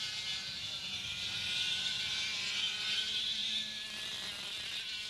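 Two-stroke racing kart engines at full throttle, a high whine as two karts pass close together. The sound is loudest a little past the middle, dips slightly in pitch and fades toward the end.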